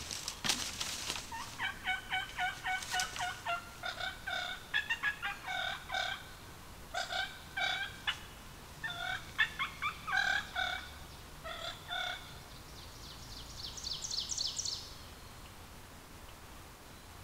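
Wild turkeys calling close by: a quick run of short calls, then sharp calls in ones and twos for several seconds, and a fast high-pitched trill near the end.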